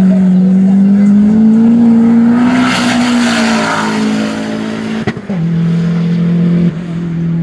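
Compact sedan's engine at full throttle on a drag-strip run, a steady drone that steps down in pitch at each upshift, about two and a half and five seconds in.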